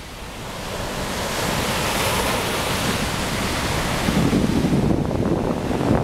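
Ocean surf breaking and washing up a sandy beach, the rush of water swelling over the first two seconds. From about four seconds in, a choppy low rumble of wind buffeting the microphone joins it.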